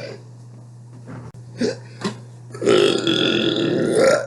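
A person burping: the tail of one burp at the start, two short bursts, then a long, loud burp lasting about a second and a half near the end.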